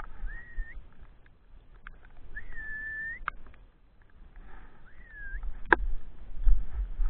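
Three whistled notes, each rising and then holding level. The middle one is the longest, and a couple of sharp clicks sound among them over a low rumble.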